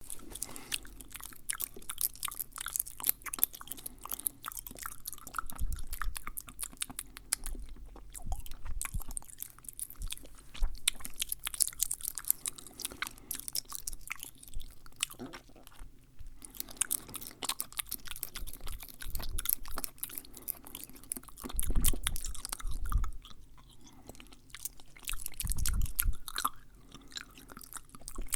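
Fast, close-miked ASMR mouth sounds: rapid wet clicks, smacks and crackles from the lips and tongue, with a few low bumps in the second half.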